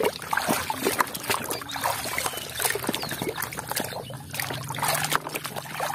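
A hand sloshing and squelching through thick muddy water in a plastic tub, with irregular wet splats and dribbles.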